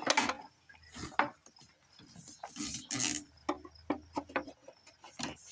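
Irregular clicks, knocks and short scrapes of wood and machine parts being handled, with a faint low hum underneath.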